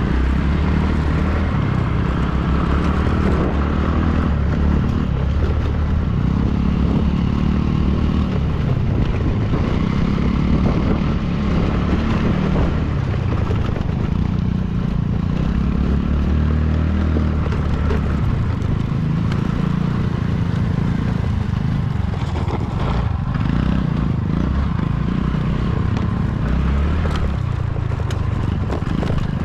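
Motorcycle engine running steadily at riding speed over a rough track, its pitch rising and falling, with occasional clattering knocks from the bike.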